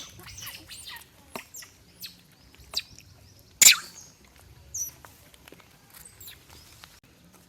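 Monkeys feeding: irregular clicks, crackles and rustles from fruit and branches being handled, with one sharp, louder crack about halfway through.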